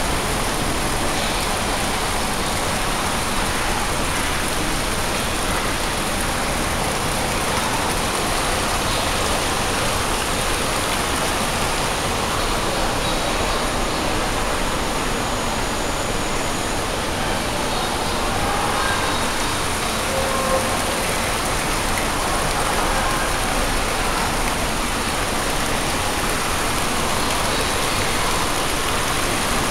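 Steady rush and splashing of water jets arcing into a swimming pool.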